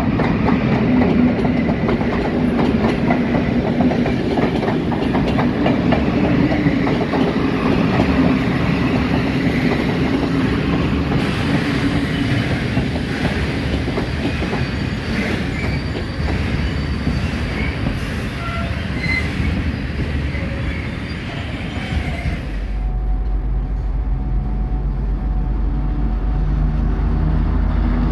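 A PKP Intercity passenger train rolls past: its electric locomotive and then the coaches, wheels clattering steadily over the rail joints. About 22 seconds in this gives way abruptly to the steady low drone of an ST44 diesel-electric locomotive (Soviet M62 type, two-stroke V12 diesel) running close by.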